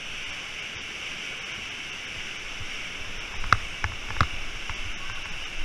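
Steady rushing roar of a large whitewater rapid, with a few sharp knocks a little past halfway.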